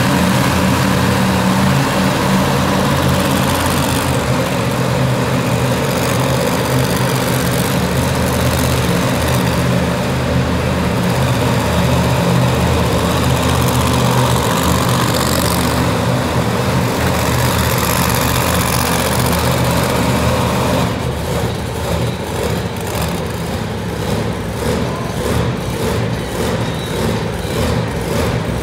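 Monster truck engine running hard as the truck drives around the arena floor, a steady low drone. About two-thirds of the way through it eases off into a quicker, choppy pulsing beat.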